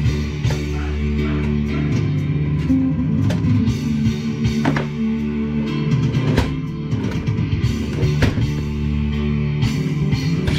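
Rock-style music with guitar, bass and a drum kit keeping a steady beat.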